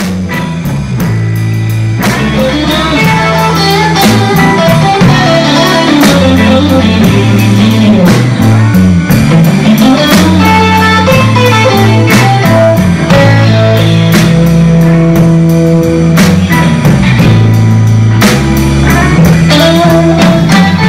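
Live blues band playing an instrumental passage: electric guitar lines over bass and a drum kit, fading in over the first few seconds and then playing at a steady level.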